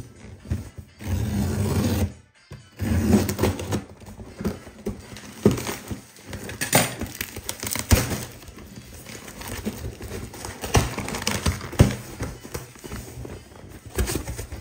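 Cardboard shipping box being opened by hand: a blade cutting and peeling packing tape, then the flaps pulled open, with scrapes, thumps and rustling of cardboard.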